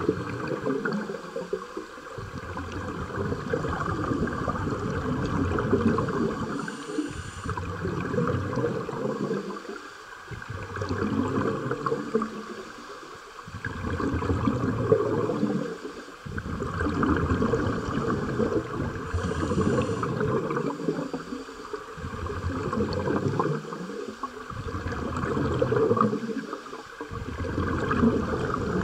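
Scuba regulator breathing heard underwater: bursts of exhaled bubbles rushing out, each lasting a few seconds, broken by short quiet pauses for each inhalation.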